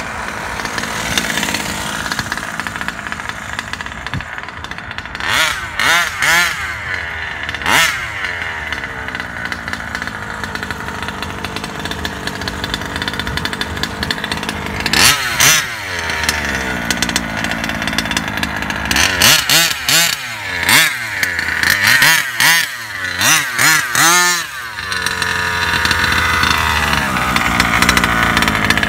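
Small two-stroke petrol engine of a King Motor 1/5-scale RC buggy, running and revving hard in short repeated bursts, with a cluster of quick revs a little past the middle. Near the end it settles to a steadier idle.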